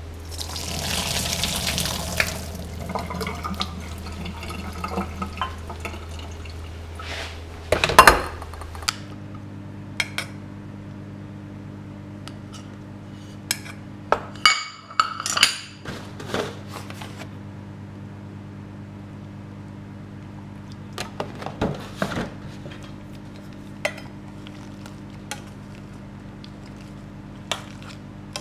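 Boiled peas and their water poured into a metal colander, a brief rush of water, followed by clinks and knocks of pans and utensils, the loudest a single sharp clank about eight seconds in, over a steady low hum.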